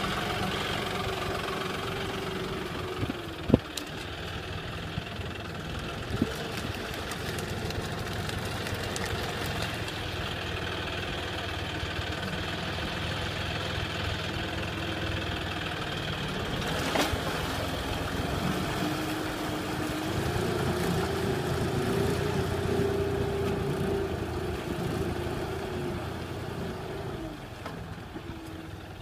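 John Deere tractor's diesel engine running steadily under load as it pulls a disc plow through floodwater, with a few sharp knocks along the way. The engine note rises about two-thirds of the way through, holds, then drops and fades near the end as the tractor moves off.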